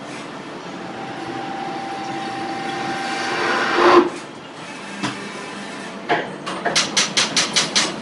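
CNC milling machine cutting metal, running with a steady whine that builds to a loud peak about four seconds in and then drops away. Near the end comes a quick run of about eight sharp clicks, roughly six a second.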